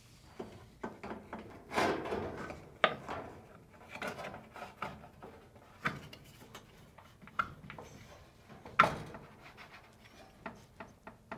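Hands fitting a dryer blower wheel fan onto its motor shaft: a series of irregular clicks and knocks with some rubbing, the loudest knock near nine seconds in.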